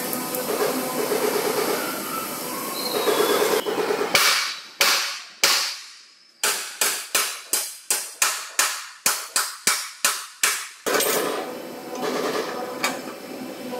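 Sledgehammer blows on the steel front chassis rail of a Toyota Land Cruiser Prado: a few single strikes, then a fast, even run of about fifteen, each a sharp metallic clang that rings briefly. The hammering is straightening the bent frame beam. A steady background sound comes before and after the blows.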